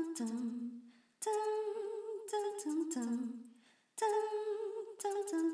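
A voice humming unaccompanied: a short phrase of held notes that steps down in pitch, heard three times with brief silent gaps between.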